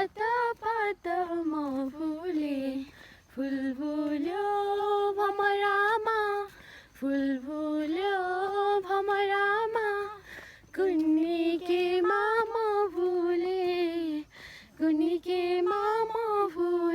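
A woman singing a Nepali song unaccompanied, in long held notes with small ornamented turns, phrase after phrase with short breaks between.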